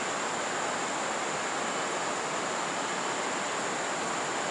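Steady rushing of a fast river flowing over stones, with a faint, even high tone above it.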